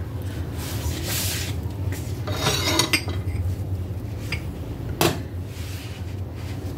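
Scraping and rubbing of a wooden pop stick and utensils against a bowl as a banana is dipped and turned in melted chocolate, with a single sharp clink about five seconds in. A steady low hum lies underneath.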